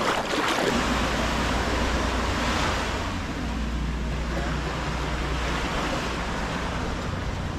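A foot splashing through shallow seawater at first, then the wash of small waves on a sandy beach, with wind rumbling on the microphone.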